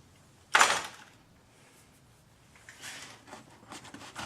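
Hand-tool and parts handling in an engine bay: one short, loud scraping rustle about half a second in, then faint rustles and small clicks.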